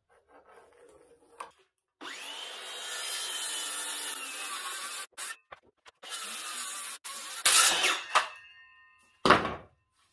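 Cordless circular saw crosscutting the end of a live-edge ash slab in short spells, its motor whine sinking slowly under load. Near the end the blade spins down, with two loud knocks.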